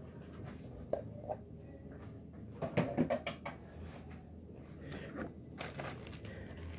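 Light knocks and clatter of things being handled in a kitchen, a few single knocks early on and a louder cluster about three seconds in, over a low steady hum.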